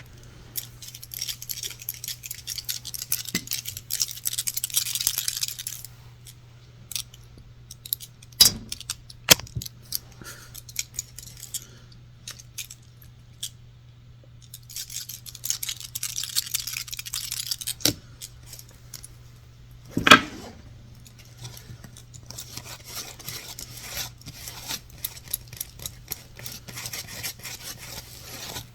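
Close-up tapping and scratching on objects, wood among them: bursts of rapid crisp taps and scratches, with a few single sharper knocks between them, the loudest about twenty seconds in. A faint steady low hum lies underneath.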